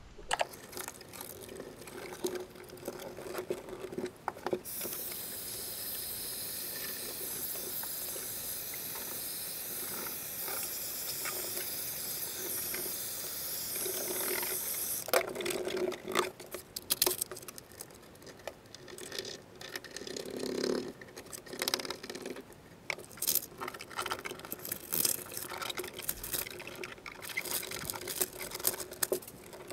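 Heat gun blowing with a steady hiss for about ten seconds, from about five seconds in, as it warms a foil-faced Dynamat sound-deadening sheet on a car floor pan. Before and after it, crinkling, rustling and light knocks of the foil mat and its paper backing being pressed down and handled.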